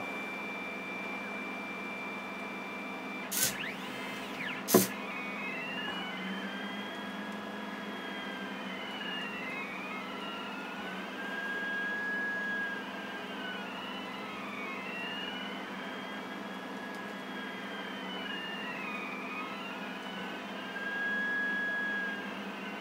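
Pen plotter's stepper motors whining as the pen draws a circle: two tones glide up and down in arcs and cross each other as the two axes speed up and slow down in turn. Before the circle starts there is a steady high tone, then two sharp clicks about three and a half and five seconds in.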